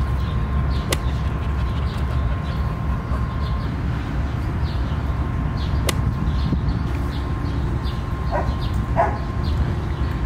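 A dog barking twice, short and sharp, near the end, over a steady low rumble.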